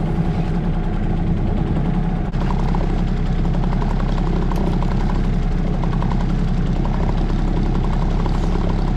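Sailboat's outboard motor running steadily at idle, a low, even rhythmic engine note.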